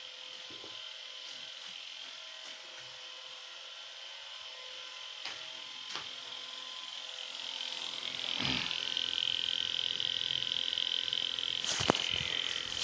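Steady high-pitched insect chorus that grows louder about two-thirds of the way through, with a few sharp knocks.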